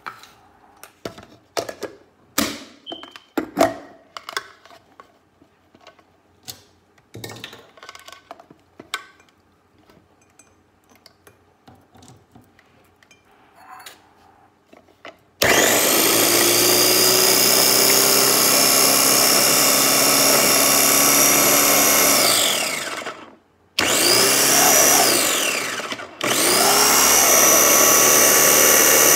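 Clicks and knocks as the bowl and motor head of a small Ninja food processor are fitted together, then its motor runs in three pulses while the top is pressed down, chopping a dip mixture: a long run of about seven seconds, a short one, and a third that keeps going. Each time it is released the whine falls in pitch as the blade winds down.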